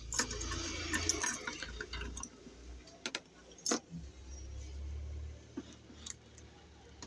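Handling noise of small hard objects on a work surface: light rattling and rustling for the first two seconds, then a few sharp separate clicks, over a low steady hum.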